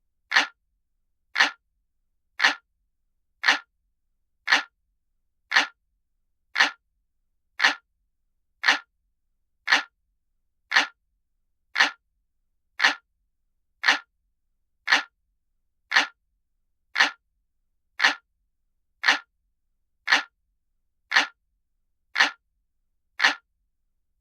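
Clock ticking sound effect: one sharp, even tick about once a second, with silence between the ticks.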